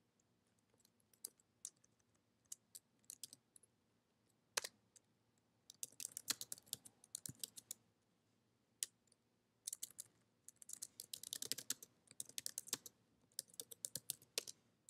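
Faint typing on a computer keyboard: a few scattered keystrokes at first, then quick runs of keys with short pauses between them through the second half.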